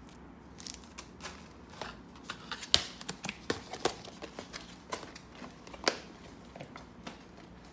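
Small plastic bags and containers of slime decorations being handled off to the side: irregular light clicks and taps, a couple of them sharper about a third of the way in and near the end.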